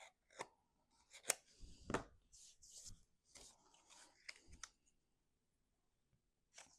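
Cardstock being handled and shaped by hand: faint paper rustling and scraping with a few sharp ticks, dying away about five seconds in.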